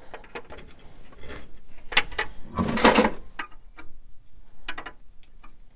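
Light plastic clicks, taps and scrapes as a plastic grille is test-fitted against a hard plastic RC4WD Chevy Blazer scale truck body, with a longer, louder scrape about three seconds in.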